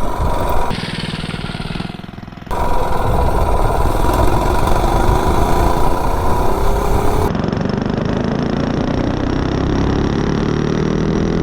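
Modified 98cc single-cylinder mini bike engine running under riding. In the last few seconds its pitch climbs steadily as the bike accelerates.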